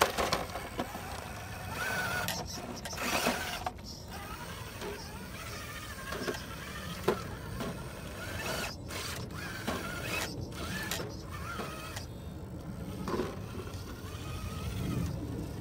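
Gmade Komodo Double Cab RC crawler's electric motor and gear drivetrain whining, the pitch rising and falling with the throttle as it crawls over rock, with a few short knocks.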